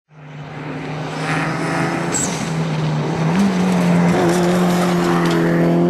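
Rally car engine running hard at high, steady revs, fading in at the start and stepping up slightly in pitch about three and a half seconds in.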